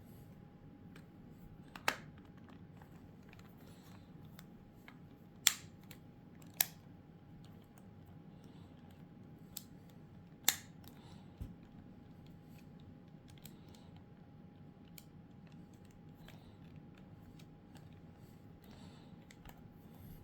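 Scattered sharp clicks and taps of small hard plastic parts being handled during a PS4 controller repair. There are four louder snaps, the first about two seconds in and the last about halfway through, over a faint steady hum.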